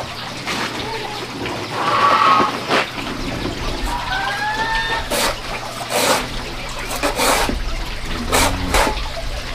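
Knife knocking and cutting on a large bamboo tube, several sharp knocks in the second half. Birds call in the background, including a short rising call twice about four seconds in.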